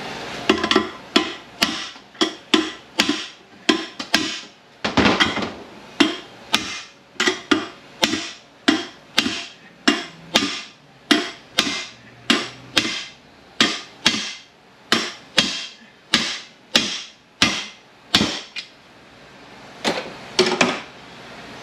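Hammer blows on a long steel drift set against parts inside a Ford MT82 six-speed manual transmission case, driving a part out. There are some three dozen sharp strikes, about two a second, then a short pause and two last blows near the end.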